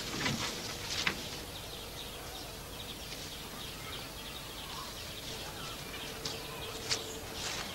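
Quiet outdoor ambience with faint bird chirps, broken by a few short snaps and rustles of someone moving through undergrowth, about a second in and again near the end.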